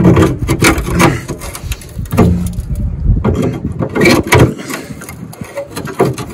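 Claw hammer knocking and prying at a rusted bolt and corroded steel on a Land Rover Defender 110's rear chassis: a string of irregular sharp knocks with scraping in between.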